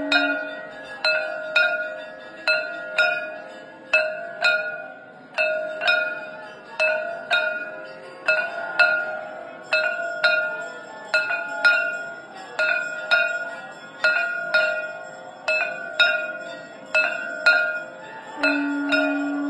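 Temple hand bell rung steadily, about one and a half ringing strikes a second, each strike decaying with a bright metallic ring. A conch shell blown in a steady held note stops just after the start and starts again near the end.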